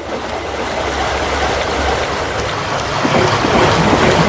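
Steady rush of seaside wind and surf, with wind rumbling low on the microphone.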